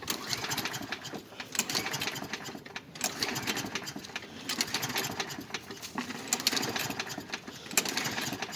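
Lawn-Boy push mower engine being pull-started with the recoil starter: repeated cord pulls, about one every second and a half, each turning the engine over in a quick clattering rush without it catching. The engine fails to start after sitting for about a week.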